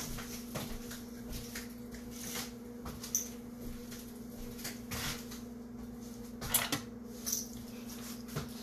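Scattered light knocks and clicks of kitchen cupboards and drawers being handled while a knife is fetched, the loudest pair about two-thirds of the way through, over a steady low hum.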